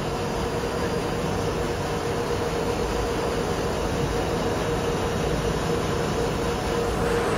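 Titan ER610 slitter rewinder running at high speed, slitting BOPP polypropylene film and rewinding it onto narrower rolls: a steady mechanical rush with a constant hum.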